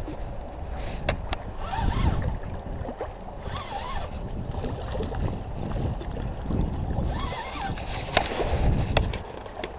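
Wind buffeting the microphone over water washing on a rocky shore, with a few sharp clicks about a second in and near the end.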